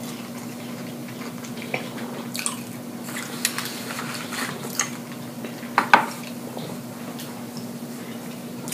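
A person chewing food with the mouth open and smacking the lips: scattered wet clicks, with a couple of louder smacks close together about six seconds in. A steady low hum runs underneath.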